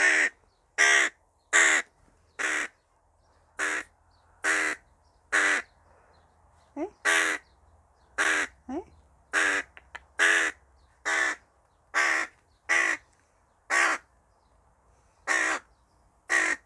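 Tame hooded crow cawing repeatedly while it eats: about seventeen loud, harsh caws, close to one a second, with two short pauses. Two brief, softer rising notes come between the caws near the middle.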